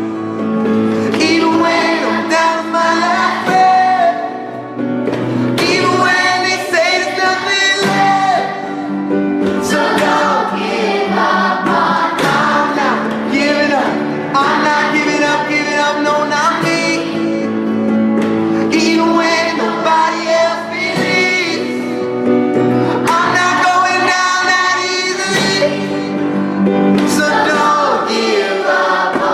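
A recorded song: a sung vocal over instrumental accompaniment.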